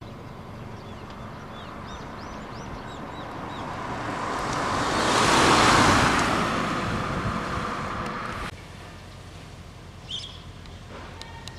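A vehicle passing by: its noise builds to a peak about halfway through, fades, then cuts off suddenly. A bird chirps repeatedly in the first few seconds.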